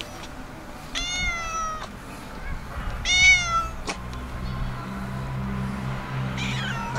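Domestic cat meowing: two long meows about two seconds apart, the second louder, then a fainter falling meow near the end. A low steady hum runs underneath from about halfway through.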